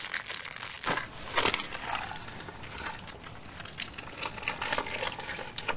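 Crinkling and crackling of a plastic food packet handled in the hands, with several sharp crackles spread through.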